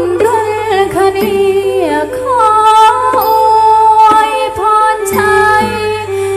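Northeastern Thai folk song accompanying the dance: a woman's voice singing a melody with sliding pitches over instrumental backing, with a few drum beats.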